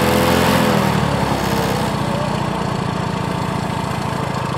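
A motor running steadily with a fast, even chugging rhythm, like a small engine at idle. At the start a pitched hum dips slightly before the chugging takes over.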